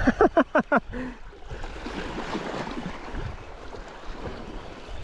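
Wind and small waves lapping on a rocky sea shore, a steady rush. In the first second, a quick run of about six short sounds, each falling in pitch.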